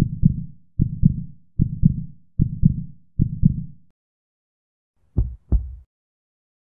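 Heartbeat sound effect: low double thumps in a steady lub-dub rhythm, about one beat-pair every 0.8 seconds, stopping a little before the halfway point. Near the end, after a pause, come two sharper single beats in quick succession.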